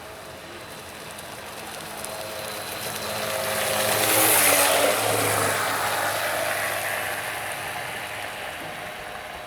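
Vintage SHG Shadow RC boat's 3650 brushless electric motor and 1:3 gearbox running as the boat passes close by: a whine that grows louder, peaks with a hiss about four and a half seconds in, then fades away.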